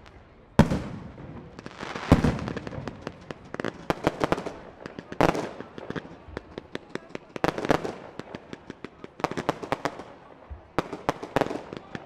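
Fireworks bursting in the sky: a loud bang about half a second in and another about two seconds in. After them come many rapid sharp cracks in clusters, with rising and falling hiss, to the end.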